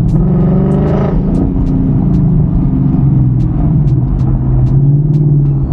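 Ford Mustang GT's V8 engine heard from inside the cabin on the move, its pitch rising over the first second as the car accelerates, then running steadily at cruise.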